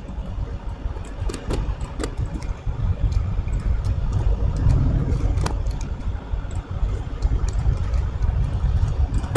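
Scattered clicks of a computer keyboard and mouse as keyboard shortcuts are pressed in 3D modelling software, over a steady low rumble.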